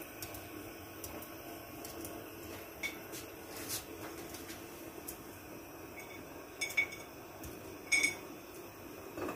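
Knife cutting cashew nuts on a ceramic plate: scattered sharp taps of the blade against the plate, a few louder ones in the second half, over a faint steady hum.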